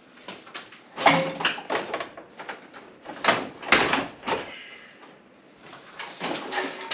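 Plastic front bumper cover of a 2022 Toyota Tundra being pulled loose from the truck: clattering knocks of the plastic panel and its clips. The knocks come in three groups, about a second in, around three to four seconds in, and again near the end.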